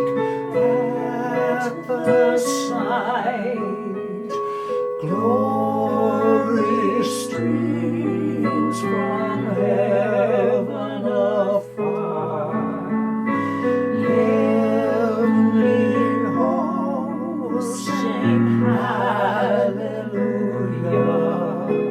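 A slow Christmas carol: a solo voice singing held notes with a wide vibrato over gentle instrumental accompaniment.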